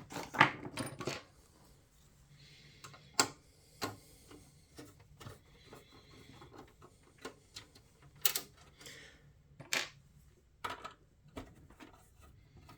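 Irregular metallic clicks, clinks and knocks as a power supply is unscrewed and taken out of an old PC's metal case, with a few sharper knocks spread through.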